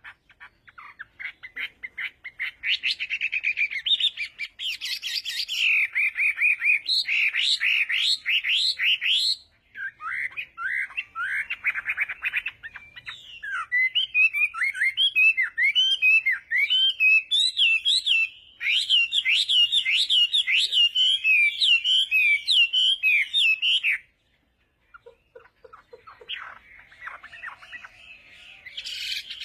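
Songbirds chirping and trilling in quick, dense series, in several back-to-back recordings that cut off abruptly from one to the next, with a short silent gap near the end.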